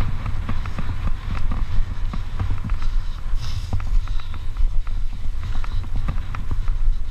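Mountain bike riding fast over a dry dirt trail: wind buffeting the camera microphone as a heavy rumble, tyre noise on loose dirt, and frequent irregular clicks and rattles from the bike jolting over bumps.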